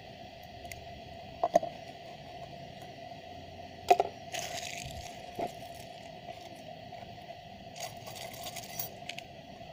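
Light metallic clicks and clinks of thin steel transformer laminations being handled and dropped on a pile, the loudest about four seconds in. Crinkly rustling of paper insulating tape follows it and comes again near the end, over a faint steady hum.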